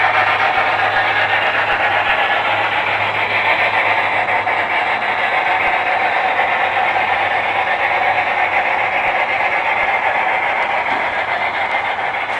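A large-scale model steam locomotive running along the track with a steady rushing noise, growing fainter near the end as it draws away.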